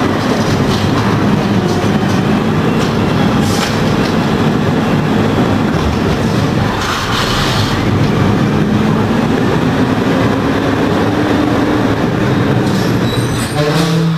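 Natural-gas-powered automated side-loader garbage truck running while its arm works the trash carts: a steady engine and hydraulic hum that rises slowly in pitch around the middle, with a couple of sharp knocks and a few short high squeaks near the end.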